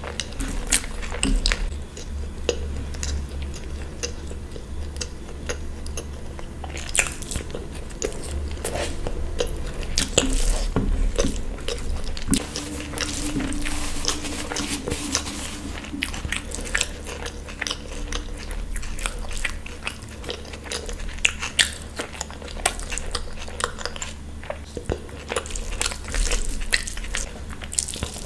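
Close-miked eating: biting and chewing food, with frequent short crunches, over a steady low hum.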